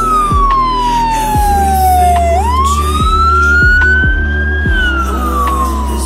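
Fire engine siren on wail: a slow falling tone, a quick rise a little over two seconds in, a slow climb, then another fall near the end. Underneath is background music with bass notes and a drum beat.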